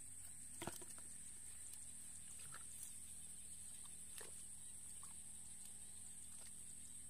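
Faint wet squelches and clicks of hands working through soft mud, a handful of short sudden ones, the sharpest less than a second in, over a steady high-pitched hiss.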